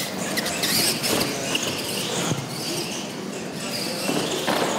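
Electric RC monster trucks racing: high-pitched motor whine rising and falling in short chirps and squeals as they accelerate and turn.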